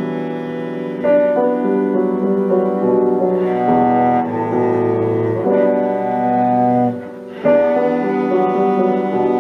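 Cello and piano playing a cello sonata: the cello holds long bowed notes over the piano, the music moving from note to note, with a brief break about seven seconds in before both come back in.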